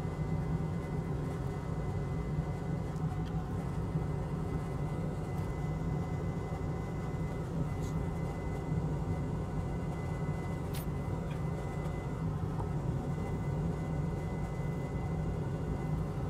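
Steady low hum and hiss of running bench equipment, with a faint steady high whine throughout and two faint clicks about midway.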